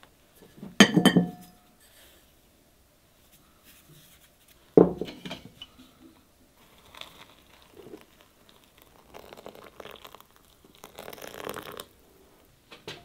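Crockery clinking twice, sharply, about a second in and near five seconds, as dried safflower is moved from a clay pot into a ceramic bowl. Later, water is poured from a kettle over the safflower in the bowl, a soft rushing splash in two stretches near the end.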